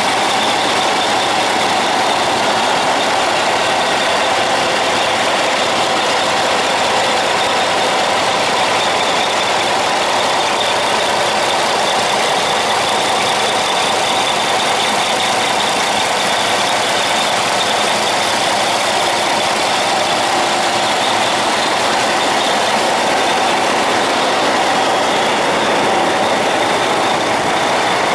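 Rebuilt Cummins heavy-duty diesel engine idling steadily on its first extended run after an overhaul.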